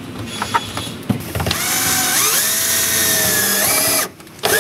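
Bosch cordless drill/driver driving a screw into a kayak's plastic U-channel: a few handling clicks, then the motor runs for about two and a half seconds, its whine rising in pitch partway through, and cuts off suddenly.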